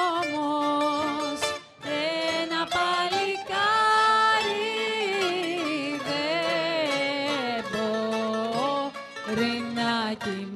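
Rebetiko music played live: a bouzouki-type plucked-string instrument carries a bending melody with vibrato over a steady plucked accompaniment, and pauses briefly near the start.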